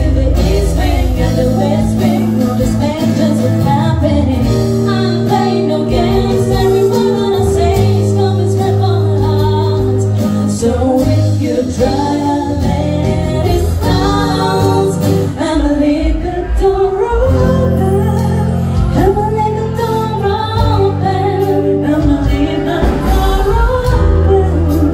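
Two women singing together into handheld microphones over instrumental backing, amplified through a PA loudspeaker system.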